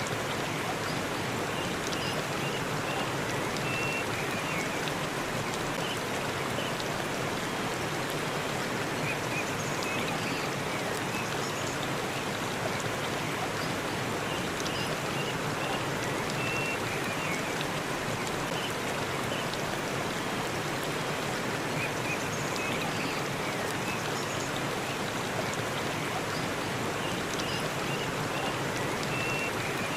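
Forest waterfall: a steady, even rush of falling water, with faint short high chirps now and then.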